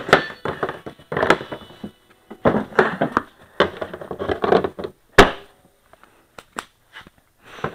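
Handling and adjusting a chainsaw: scraping and clatter of plastic and metal parts, with a few clicks and one sharp knock about five seconds in.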